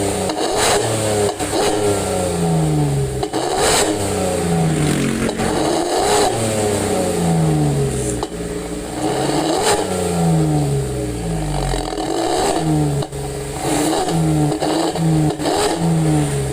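Datsun GO's three-cylinder engine revved in short throttle blips through an aftermarket 'Suos Ngorok' growl exhaust, the revs falling away after each blip, again and again.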